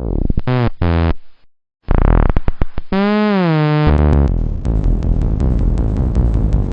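Electronic remix music built from chopped, pitch-shifted sound samples: stuttering repeated notes with a short break, a held note that bends up and back down, then a dense steady electronic pattern with rapid ticks from about four seconds in.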